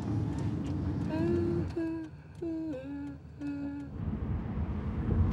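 A voice humming a slow little tune, a handful of held notes stepping up and down, over the steady rumble of a car on the road. The road rumble grows louder near the end.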